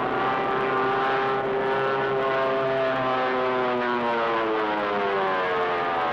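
Droning of a giant multi-engine propeller bomber's engines in flight, a cartoon sound effect. Several pitches overlap and slowly slide up and down as the plane banks.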